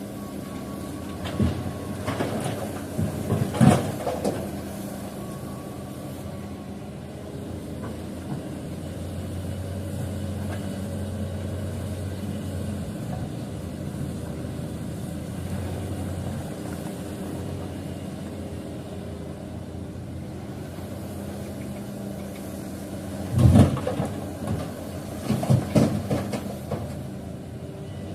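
Heavy construction machinery's engine running steadily, with a few sharp knocks a few seconds in and a loud cluster of clanks near the end.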